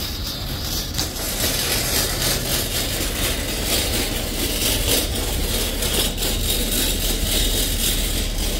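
Metal shopping cart carrying a heavy boxed load rolling across parking-lot asphalt, its wheels rumbling and the wire basket rattling steadily.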